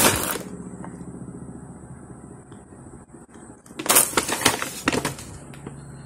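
Paper coffee-bean bag crinkling as it is handled and folded shut, then a few sharp rustles and knocks about four seconds in.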